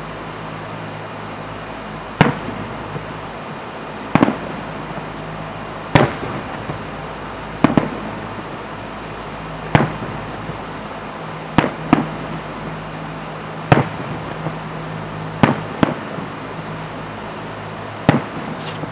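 Aerial fireworks shells going off in a display: about eleven sharp bangs, roughly every two seconds, each trailing off in an echo.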